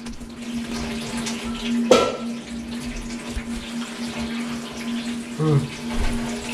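Kitchen tap running into a steel sink as things are washed under it, with a steady low hum underneath. A sharp clank about two seconds in.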